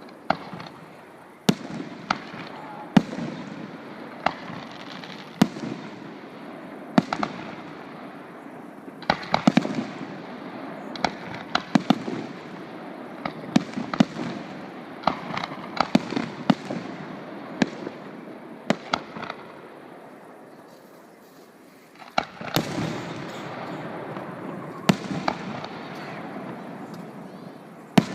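Fireworks display: aerial shells bursting in sharp bangs every second or two, with crackling in between. The crackling fades to a short lull about twenty seconds in, then a new salvo breaks out.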